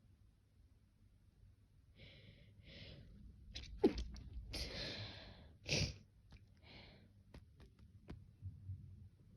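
A person sneezing: two short breaths in, then a sharp sneeze about four seconds in, a longer breathy exhale, and a second sharp sneeze near six seconds, followed by a few small clicks.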